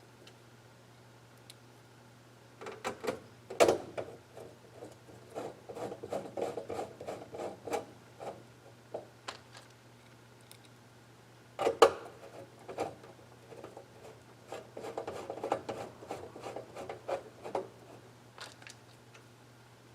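Hands working with small parts on a workbench: irregular rubbing and scraping with sharp clicks and knocks, the loudest about 4 and 12 seconds in, over a steady low hum.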